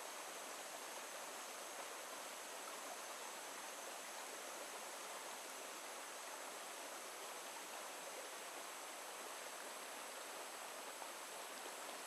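Shallow rocky stream running steadily over stones and pebbles, a constant even rush of water through small riffles.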